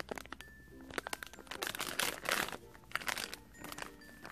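Thin plastic packaging bag crinkling in irregular crackly bursts as it is handled.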